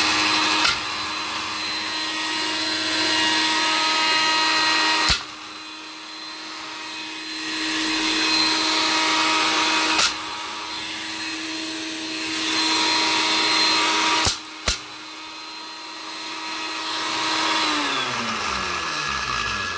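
Jug blender motor running at its highest setting with a pair of wired earbuds inside and no water, shredding them. A few sharp clicks sound through the run, and the motor winds down near the end.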